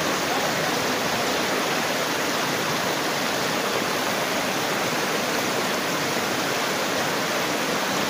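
Steady rush of river water running over rocks in shallow rapids, an even, unbroken hiss.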